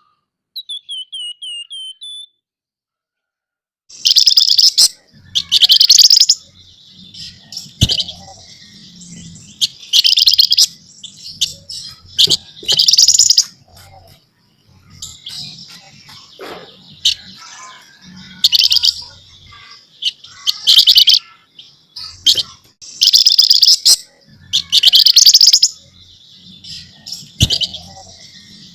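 A flamboyan (wergan Jawa) songbird calling. Near the start there is a short run of about seven clear, repeated whistled notes. After a pause come loud, rapid, scratchy chattering bursts, each about a second long and repeating every couple of seconds.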